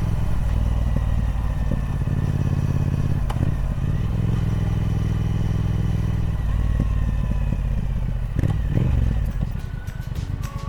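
Triumph Speed Twin 1200's parallel-twin engine running steadily at low revs through its stock exhaust, with a few light clicks; the note turns uneven near the end.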